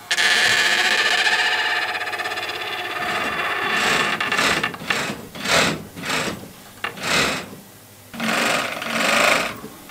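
Small motor-driven bench machine running with a steady whine for the first few seconds, then a series of uneven rasping surges, one every half-second to a second, as work is fed to it.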